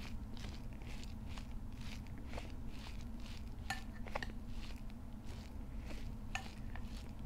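Mukbang eating sounds: two people eating with their fingers from a shared tray of rice, chicken curry and raw vegetables, making soft clicks, crunches and rustles of food being picked up and chewed, with a few sharper clicks in the middle. A steady low hum runs underneath.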